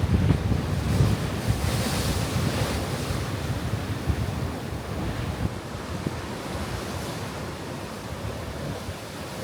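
Ocean surf surging and washing over shoreline rocks, with wind rumbling on the microphone. The rush is heaviest at the start and slowly eases off.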